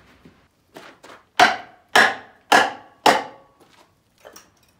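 Four sharp hammer blows on wood about half a second apart, with a couple of lighter knocks before them and one after: wooden blocks being knocked tight into place as blocking under the tractor.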